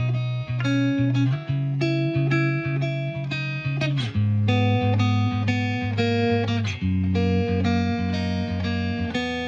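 Background music: a plucked guitar melody over a low bass line, with a bass note sliding down about four seconds in.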